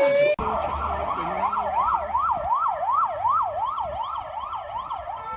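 Emergency-vehicle siren yelping, its pitch swinging rapidly up and down about three times a second; it starts abruptly a moment in.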